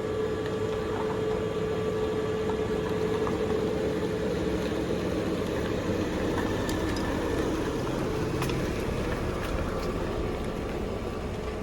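Steady noise of stuck road traffic, with a held hum in the first half that fades away.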